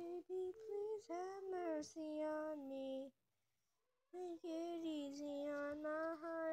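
A child singing unaccompanied: two phrases of held, gliding notes, broken by about a second of silence near the middle.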